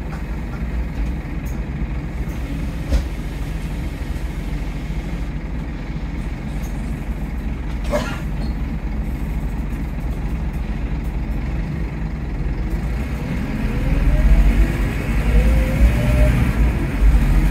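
Scania K230UB OmniLink bus engine running steadily, heard from inside the saloon, with a brief sharp sound about halfway through. Near the end the bus pulls away: the engine gets louder and the ZF Ecomat automatic gearbox whines up in pitch.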